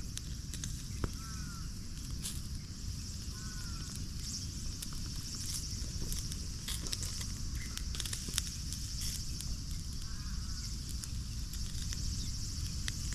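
Outdoor ambience: a steady high-pitched hiss over a low rumble, with scattered sharp clicks and three short chirps, about 1, 3.5 and 10 seconds in.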